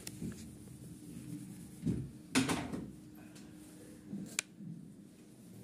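Handling and movement noises: a couple of soft knocks, a short scraping rustle about two and a half seconds in, and a sharp click about four seconds in, over a faint steady hum.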